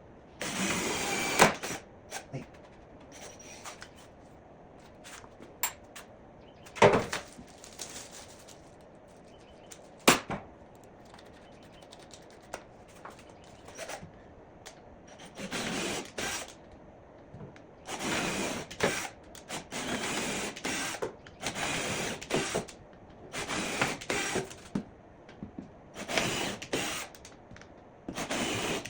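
Hand-tool work on wood: a few sharp knocks, then repeated mechanical bursts about a second long every couple of seconds, like ratcheting or screws being driven.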